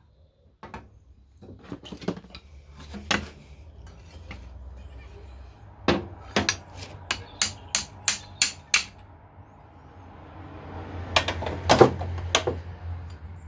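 Sharp metal-on-metal hammer taps as a classic Fiat 500 pedal assembly is knocked into place on its central shaft. A few scattered taps come first, then a quick run of about eight taps around the middle, and another cluster near the end.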